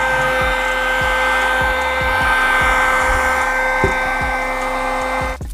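Small drone motor spinning a propeller inside a 3D-printed bladeless fan: a steady high-pitched whine over rushing air. It stops abruptly near the end.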